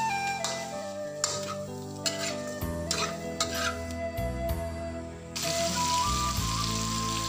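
Meat pieces frying and sizzling in a steel wok, stirred with a metal spatula that clicks and scrapes against the pan. The sizzle gets louder about five seconds in.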